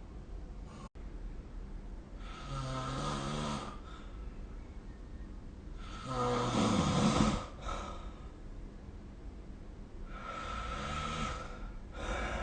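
A sleeping person snoring: three snores about four seconds apart, each a breathy rasp over a low vibrating tone, the middle one the loudest, with another starting near the end.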